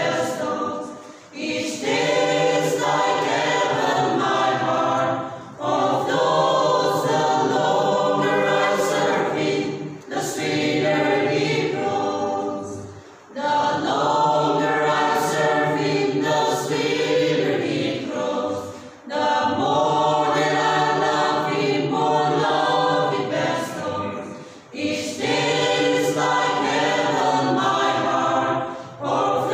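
Mixed choir of men and women singing a gospel hymn a cappella, in long phrases broken by short breathing pauses every few seconds.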